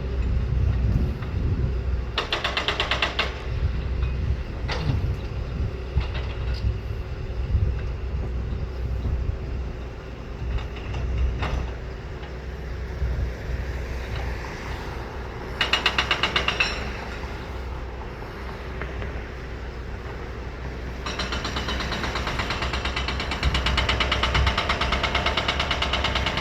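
Heavy machinery breaking up an old concrete foundation: rapid hammering blows come in bursts, about 2 s in, about 16 s in, and a longer run from about 21 s, over the steady low rumble of a diesel engine.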